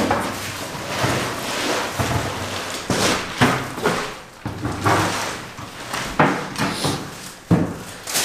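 Irregular knocks and bangs from furniture and boxes being handled during a house move, with a string of sharp knocks through the middle and end.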